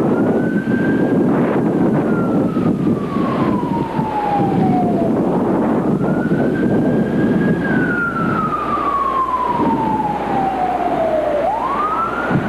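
Siren wailing in slow cycles: the pitch rises quickly, holds, then slides down over several seconds, twice, and climbs again near the end. Heavy wind rumble runs underneath.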